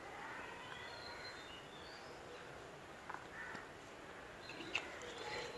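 Faint bird chirps in the background, with a few light clicks about three seconds in and again near the end.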